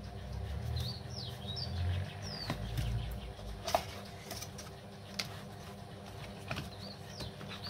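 Small birds chirping in the background: several short, quick chirps that glide up and down, in a cluster about a second in and again near the end. Scattered clicks and rustles come from cardboard and paper packaging being handled.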